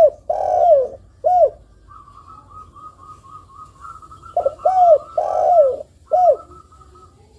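Spotted dove cooing: two phrases of three or four low, arched coos, the long middle coo sliding down in pitch, the second phrase about four seconds in.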